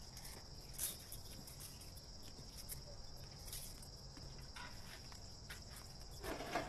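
Faint, steady cricket trilling, with a few soft taps and a brief louder sound near the end.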